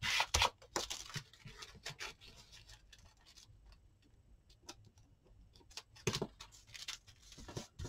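A plastic bank card rubbed in several quick strokes along a fold of baking paper to crease it. Then come a few faint snips of scissors trimming the paper, and a couple of louder knocks and rustles about six seconds in and again near the end.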